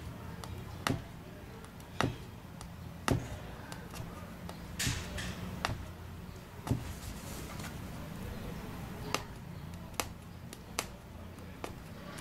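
Punch needle stabbing through fabric stretched taut in a wooden embroidery hoop, a sharp tap at each stitch, roughly one a second, over a faint low hum.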